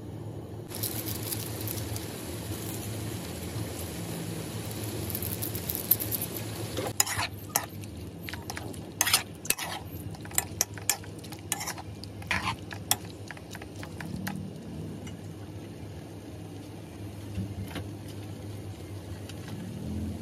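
Chicken gizzards sizzling in a non-stick pan as they are stirred with a spatula. The sizzle is strongest for the first several seconds, then gives way to a run of spatula scrapes and taps against the pan, about a dozen over six seconds.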